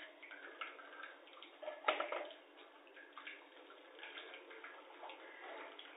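A silicone spatula scraping wet gram-flour batter through a steel mesh strainer, with faint scratchy scraping and scattered light ticks. One sharper knock comes about two seconds in.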